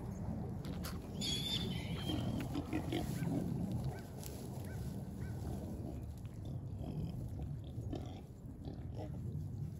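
Newborn piglet squealing in high, thin calls for about two seconds, starting about a second in, with a fainter squeal midway through.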